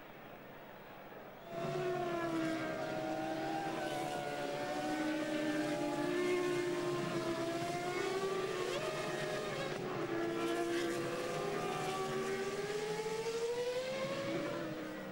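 Several Formula One cars' V10 engines running together as the cars go by in a line, their engine notes gliding up and down. The sound comes in abruptly about a second and a half in.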